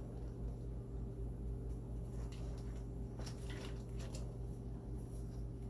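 Plastic ventilator tubing being handled and connected, with a few faint clicks and rustles, over a steady low hum from running equipment.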